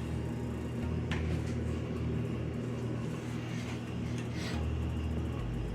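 A steady low mechanical hum, with a faint tick about a second in and a few soft rustles or scrapes later on.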